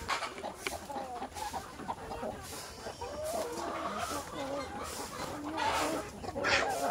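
A flock of chickens clucking, many short calls overlapping, busiest from about three seconds in to near the end.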